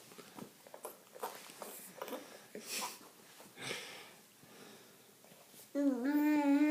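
Eating noises: scattered wet mouth clicks and breathy sniffing. Near the end comes a loud, drawn-out voiced sound of about a second with a slightly wavering pitch.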